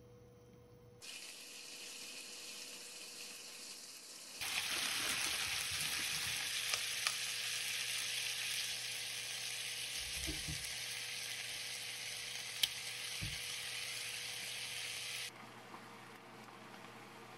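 Chicken pieces and shimeji mushrooms sizzling in hot oil in a frying pan: a steady frying hiss that starts about a second in, gets much louder about four seconds in and falls back to a faint hiss near the end. A sharp click and a few low knocks of the chopsticks and pan are heard in the second half.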